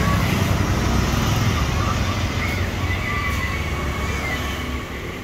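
Low rumble of passing road traffic, easing off near the end.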